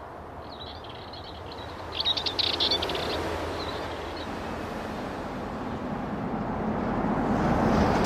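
Dartford warbler singing two short phrases of rapid, high chirps in the first three seconds, over a steady rumble of road traffic. The traffic grows louder near the end as cars pass close by.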